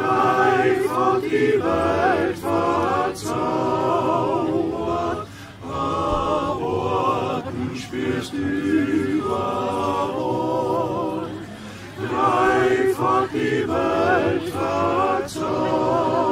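Male choir singing a cappella, the phrases broken by short pauses for breath.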